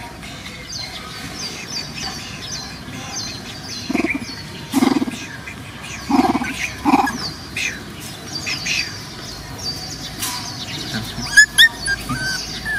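A bird calling over and over in short high notes, with a few brief animal cries from the young pets, the loudest near the end.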